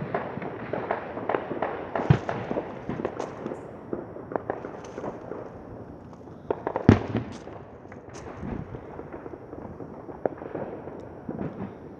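Many distant fireworks and firecrackers going off at once: an irregular crackle of pops and bangs, with two louder bangs about two seconds and seven seconds in.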